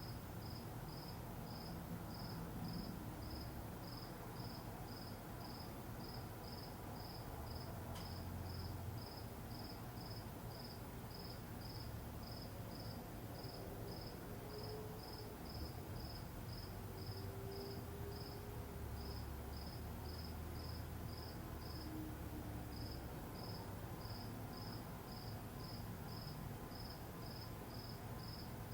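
A cricket chirping in an even, steady rhythm of short high-pitched chirps, about two to three a second, with a brief pause twice. Under it runs a faint low rumble of ambience.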